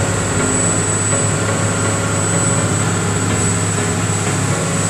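Small motorboat under way at speed: a steady engine drone mixed with the rush of wind and water.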